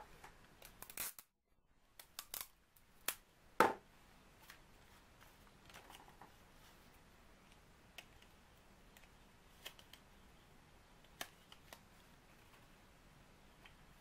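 Folded paper pieces being handled and fitted together: a cluster of sharp clicks and short paper rustles in the first few seconds, then only occasional faint ticks.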